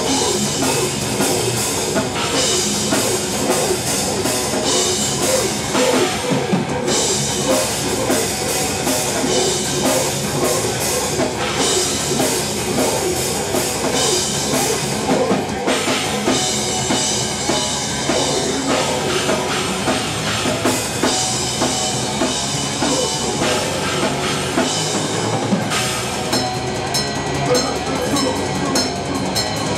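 Heavy metal band playing live: dense drumming on a full drum kit over distorted electric guitars, loud and unbroken.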